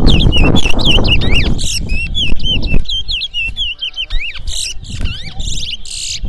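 Towa-towa (chestnut-bellied seed-finch) singing: a fast, unbroken run of sweet arching whistles and chirps. A heavy low rumble sits under the song for the first three seconds or so, then fades.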